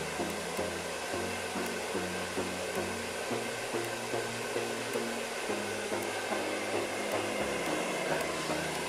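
Hair dryer blowing steadily, with background music and its bass line playing over it.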